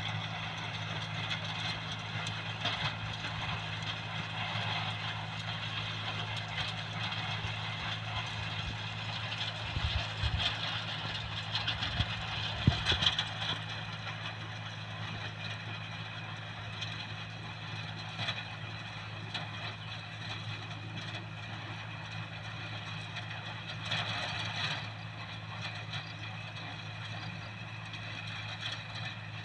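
A motor running steadily with a constant hum, with a few louder knocks about ten to thirteen seconds in.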